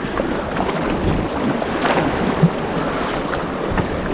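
Sea surf and water rushing and splashing around an inflatable kayak as it is paddled through breaking waves, a steady rushing noise.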